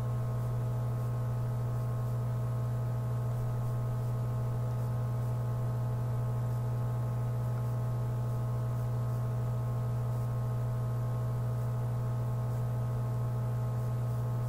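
Steady electrical mains hum with a buzzy series of overtones, unchanging throughout.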